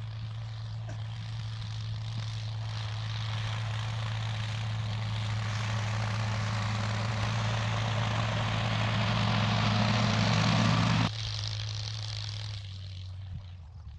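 Tractor engine running with a steady low hum, getting louder and noisier until the noise cuts off abruptly about eleven seconds in; the engine then keeps running more quietly and steps down once more near the end.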